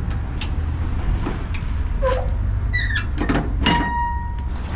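Metal squeaks and knocks from a flatbed trailer's strap winch being worked by hand to free a yellow cargo strap that is buried on the winch drum. There is a held squeal near the end and a steady low rumble underneath.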